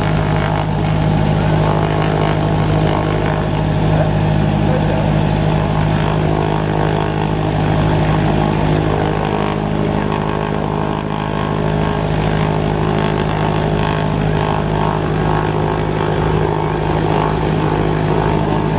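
Cessna 172M Skyhawk's four-cylinder Lycoming piston engine and propeller running steadily at low power, a constant low drone.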